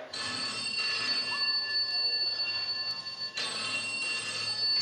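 Telephone ringing with a steady ringtone of several high tones. It sounds twice, the second ring beginning a little past three seconds in.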